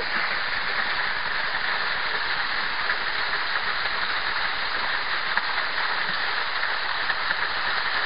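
Small waterfall spilling down a rock face into a pool: a steady, even splashing of falling water.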